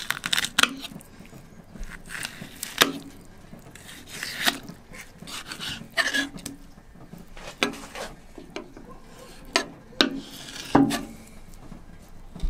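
Knife filleting a red ear sunfish (shellcracker): irregular scrapes and taps of the blade along the fish and against the cutting board, about one every second or two.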